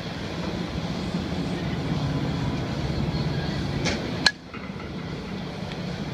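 Low steady rumble of batting-cage pitching machinery. Just before 4 s there is a light click, and about a third of a second later a single loud sharp crack as the 80 mph pitch reaches the plate.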